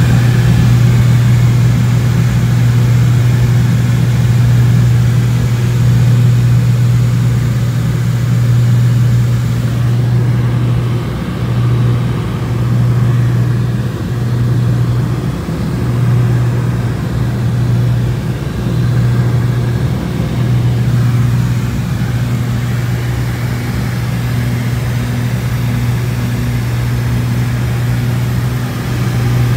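Cessna 402C's twin turbocharged flat-six piston engines and propellers droning inside the cabin: a loud, steady low hum with the level wavering slightly, the upper hiss thinning about ten seconds in.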